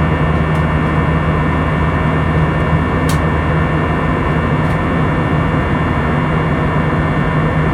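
Steady cabin noise inside an Airbus A320-200 in flight after takeoff: a constant jet engine drone and airflow hiss with a steady low hum, and a few faint ticks.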